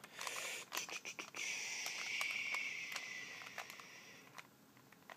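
Light plastic clicks and scrapes of a Rubik's cube being handled and turned over in the hands, with a steady hiss for about three seconds in the middle.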